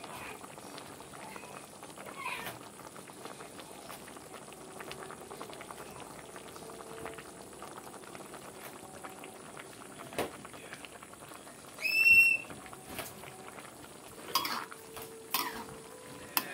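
Chicken and vegetable soup boiling in a wok, a steady fine bubbling. About two thirds of the way in comes a short, loud, high-pitched squeal. Near the end a metal ladle clicks and scrapes against the wok.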